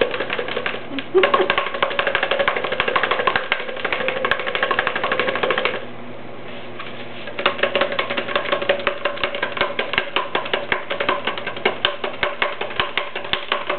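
A coil of soft clay being shaken up and down inside a cardboard paper towel tube, knocking against the tube in a rapid, rhythmic rattle. The shaking stops for about a second and a half midway and then starts again. The shaking is stretching the coil into a pottery handle.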